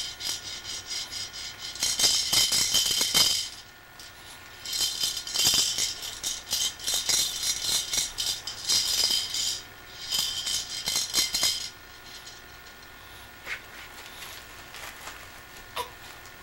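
A baby's toy rattle shaken in three spells, each a few seconds long, with a short pause between them; it stops about twelve seconds in, leaving only a few faint ticks.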